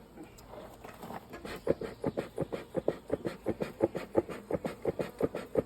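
Bee smoker's bellows pumped in quick short puffs, about four or five a second, starting after a second or so; the smoker has gone out.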